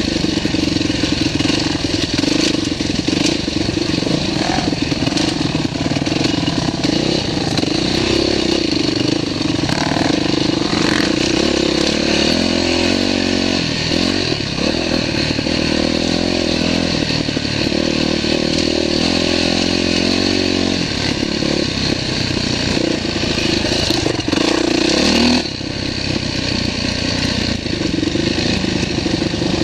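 Dirt bike engine running close under the rider on a rocky trail, its note rising and falling with the throttle. It settles into a steadier, lower note for several seconds midway, and the level drops suddenly about 25 seconds in.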